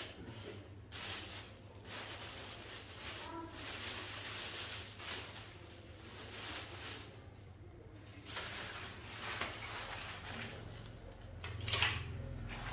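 A plastic bag rustling and dry eggshells shifting inside it as it is handled, with a louder knock of the plastic blender jar near the end. The blender is not running.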